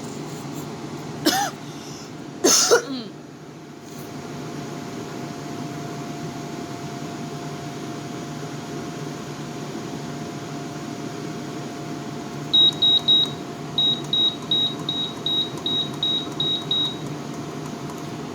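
Fedders 10,000 BTU window air conditioner's blower fan running steadily with a hum; the owner thinks its fan bearings may be a little bad. Two short sharp noises come in the first three seconds. From about twelve seconds in, the unit's control panel beeps about a dozen times in quick succession as the temperature setting is stepped up.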